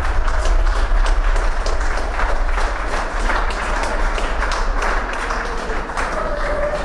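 A crowd applauding after a tunnel breakthrough blast: dense, irregular clapping over a steady low hum, with a short call or shout near the end.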